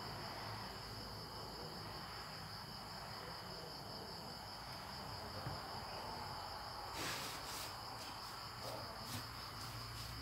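Steady, high-pitched chirring of insects. A few short clicks come about seven seconds in.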